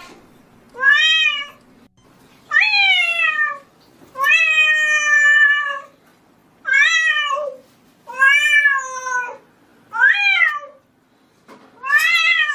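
Domestic cat meowing repeatedly, about seven separate meows, each rising and then falling in pitch. One meow about four seconds in is longer and held flatter than the rest.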